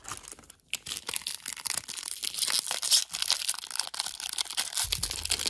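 Foil wrapper of a trading-card pack crinkling and tearing as the pack is opened, a dense run of crackles starting about a second in.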